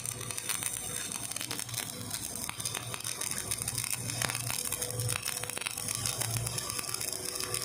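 Electric arc welding: the arc crackles and sputters steadily with dense small clicks, over a low hum.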